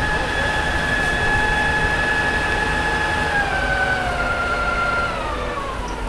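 Fire engine whining at a steady pitch over the low rumble of its running engine. About halfway through, the whine starts to fall in pitch and keeps dropping to the end.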